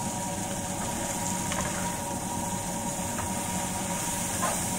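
Tuyo (dried fish) sizzling steadily in a frying pan as it is stirred, with a few light clicks and scrapes of a metal spoon against the pan.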